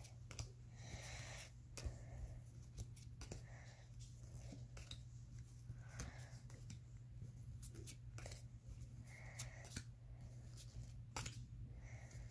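Pokémon trading cards being flipped through and set down one at a time on a bedspread: faint, scattered clicks and soft slides of card against card, over a low steady hum.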